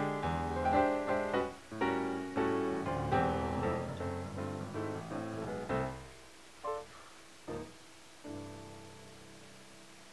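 Background piano music: a steady run of notes that thins out about six seconds in to a few single notes and a last held note fading away.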